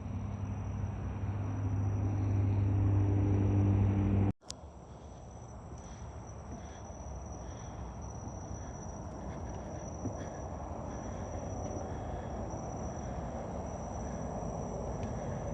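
Insects calling in a steady high-pitched drone throughout. Over the first four seconds a low hum rises under them and cuts off suddenly, leaving the insects and a soft outdoor hiss.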